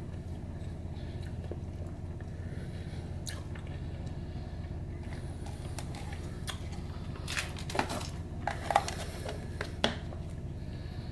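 Candy wrappers crinkling and a candy tube being handled: scattered short clicks and rustles, gathering into a louder cluster of crackles about seven to ten seconds in, over a steady low hum.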